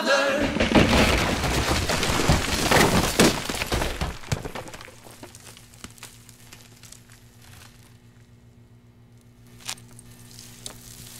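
A floor caving in: a loud crash of cracking concrete and falling debris for about four seconds, which then dies away. A few faint crackles of settling rubble follow over a low steady hum.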